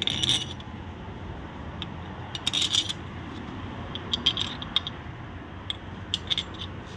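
Steel bolts clinking and scraping against the metal oil pump housing as they are set into their holes by hand, in short clusters of sharp clinks: at the start, about two and a half seconds in, around four seconds in, and near the end.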